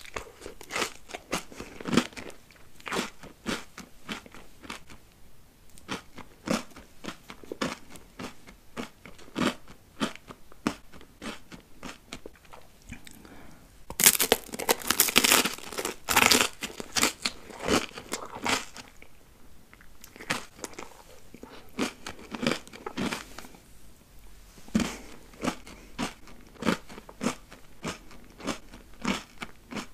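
Crunchy bites and chewing of a chocolate-coated treat: a steady run of crisp crunches and mouth sounds, with a burst of louder crunching about halfway through.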